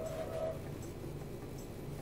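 Quiet room tone: a faint steady low hum, with a faint high tone that dies away about half a second in.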